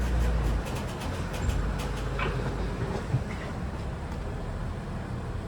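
Vehicle engine idling with a steady low rumble that swells in the first half-second, with a run of light metallic clicks and clanks over the first two seconds.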